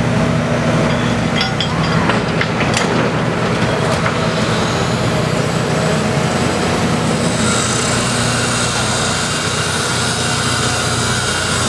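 Heavy diesel construction machinery running steadily at an excavation site, with a few metal clanks about two seconds in and a higher whine joining about halfway through.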